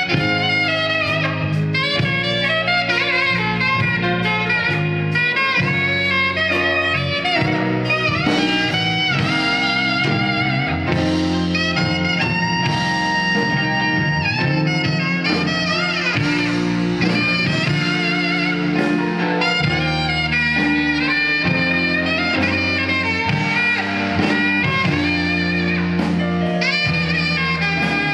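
Live band playing an instrumental passage with a saxophone taking the lead melody over bass and drums.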